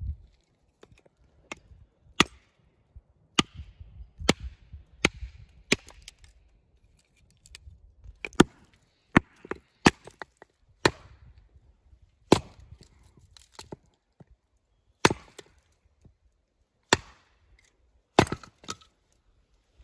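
An axe chopping a small juniper log: a dozen or more sharp wooden strikes at uneven intervals, one to two seconds apart, with a longer pause a little past the middle.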